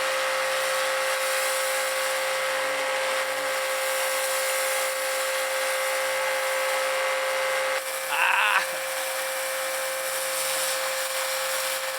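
Electric pressure washer running, a steady high motor-and-pump whine over the hiss of the spray. A brief higher squeal comes about eight seconds in.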